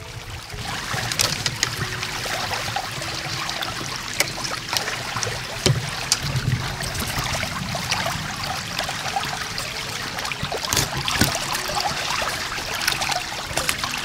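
Water splashing and trickling, with scattered small clicks and a few low knocks.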